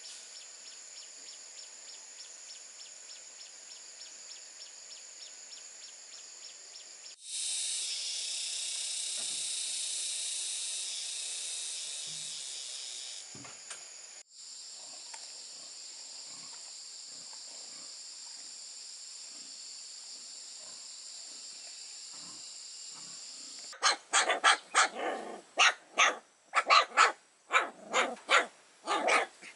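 Steady high-pitched insect drone, louder for several seconds about a quarter of the way in, then a dog barking in a rapid run of loud barks near the end.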